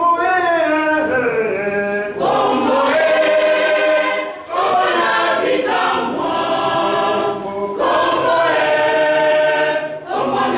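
A choir singing, many voices holding long notes in phrases of a few seconds each.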